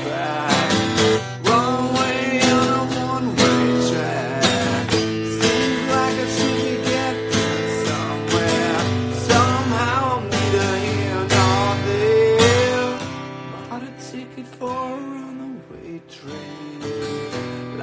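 Instrumental break of a rock song: strummed acoustic guitar under a bending lead melody, with no singing. It gets quieter about 13 seconds in.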